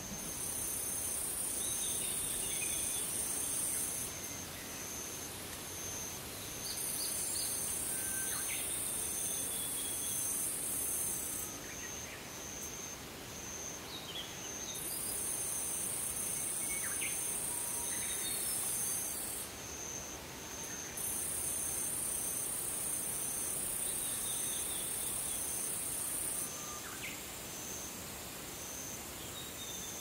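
Summer insect chorus. A shrill, very high buzzing comes and goes in spells of about four or five seconds over a steady pulsing insect note, with scattered short bird calls.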